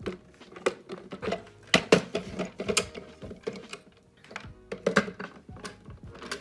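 Hard plastic parts of a Nama J2 juicer clicking and knocking irregularly as they are handled and fitted together.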